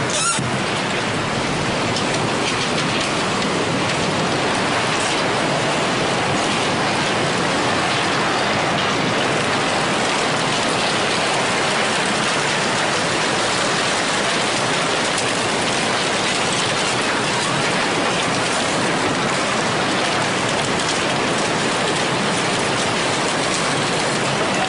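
Tsunami floodwater surging through a town: a steady, even rushing hiss like heavy rain.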